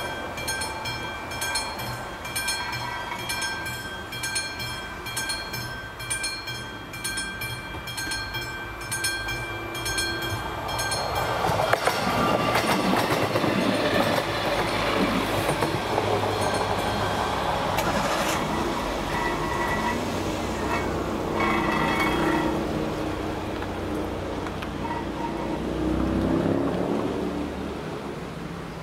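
Level-crossing warning bell of the classic electric type, paired with AŽD 71 flashing lights, ringing rapidly at about four strokes a second. About eleven seconds in, a passenger train rolls over the crossing, louder, with its wheels clacking over the rail joints. Near the end a car drives across the tracks.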